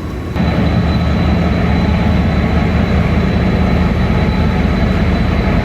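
Diesel-electric locomotive engine running steadily, a deep drone with a thin high whine over it, suddenly louder about half a second in.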